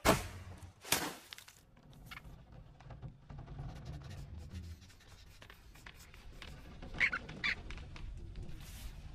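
Cartoon sound effects: a sharp crack as a wooden bow is shot, then a second sharp knock about a second later, over a low steady rumble. Two short animal-like cries come around seven seconds in.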